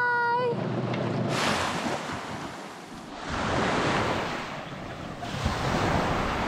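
Small waves breaking and washing up a sandy beach in repeated surges, with wind buffeting the microphone.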